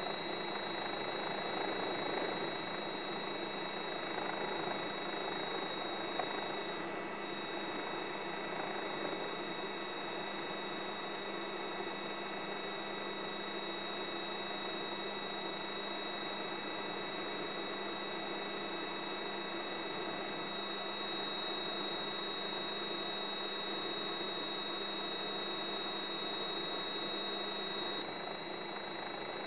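Steady hiss with a thin, high-pitched whine and a faint hum under it, unchanging throughout: the background noise of an old film soundtrack, with no blast or other event heard.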